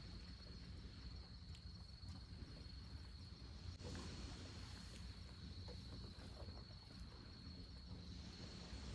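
Crickets singing steadily as a faint high, thin trill, over a low background rumble.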